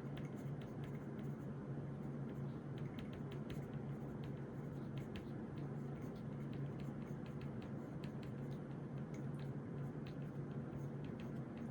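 Desk study sounds: a pen tapping and scratching on paper, heard as scattered light clicks and ticks at an uneven pace, over a steady low hum in the room.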